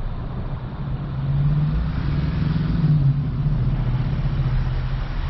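An engine running with a low, steady hum that grows louder about a second in.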